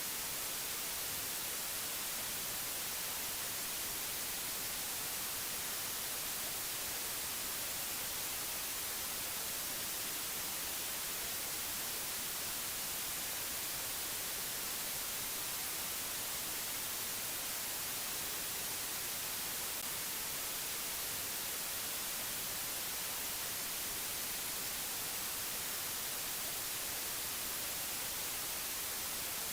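Steady, unchanging hiss like white noise, brighter in the high end, with no other events.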